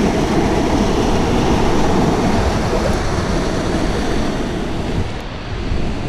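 Rushing stream water pouring over rocks in a small cascade, heard close up as a loud, steady rush; it drops away about five seconds in.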